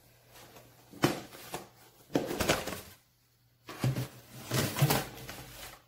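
Snap-on lid of a plastic food container being pried off: a sharp click about a second in, then two stretches of plastic rustling and scraping as the lid is handled.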